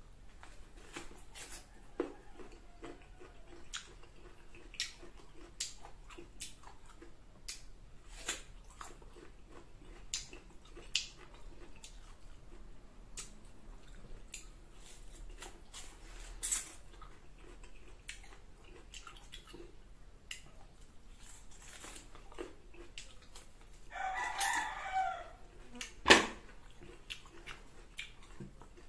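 Close-up crunching and chewing of unripe green mango, with many sharp mouth clicks and smacks. Near the end comes a short wavering pitched call, then a single sharp knock.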